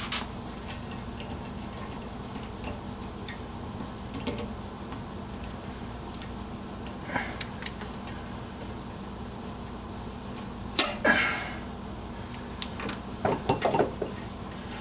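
Small clicks and taps of hand tools and small electrical parts being handled at a workbench over a steady low hum. A louder sharp clack about 11 seconds in, and a quick run of clicks near the end.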